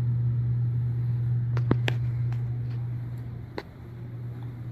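Steady low machine hum that fades away about three seconds in, with a few light clicks along the way.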